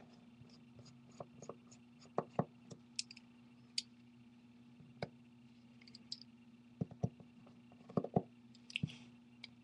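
Scattered small clicks and taps of a precision screwdriver working the tiny screws on an iPhone 4S logic board and metal frame, irregular and sharp, over a faint steady hum.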